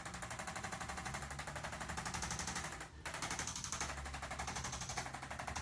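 Electric percussion massager pulsing rapidly and steadily, like a fast rattle, briefly breaking off about three seconds in.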